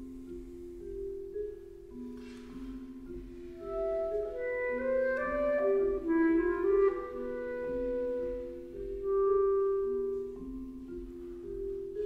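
Clarinet and vibraphone duo playing contemporary chamber music. The clarinet holds long notes against ringing, overlapping vibraphone notes, with a brief airy hiss about two seconds in.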